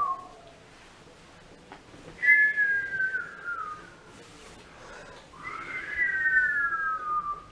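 Two long whistles, each sliding down in pitch, the first about two seconds in and the second starting halfway through and running a couple of seconds.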